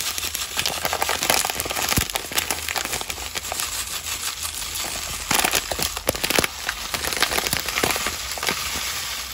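Thin plastic bag crinkling continuously as desiccated coconut is shaken out of it, with louder crinkles about a second in and again around five to six seconds in.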